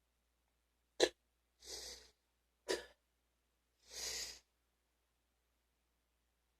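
A person coughing deeply, two single short coughs about a second and a half apart, each followed by a drawn, breathy inhale; the cough of someone who has been sick.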